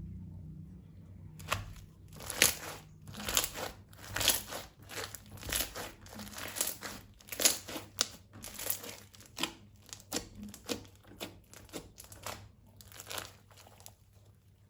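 Slime being squeezed and kneaded by hand: a run of wet, crackly squishes, one or two a second, starting about a second and a half in and stopping near the end.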